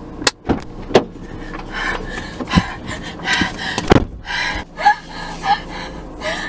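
Knocks and clatter of a Halloween skeleton decoration's bones being pulled apart and handled, with rustling between the knocks and the loudest knock about four seconds in.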